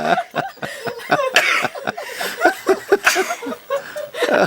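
People laughing in short, breathy bursts.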